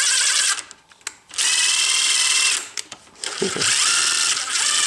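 Cordless drill spinning an M12 x 1.25 tap through a damaged lug nut held in a bench vise, chasing its threads. It runs in three short bursts of steady whine, with brief stops between them.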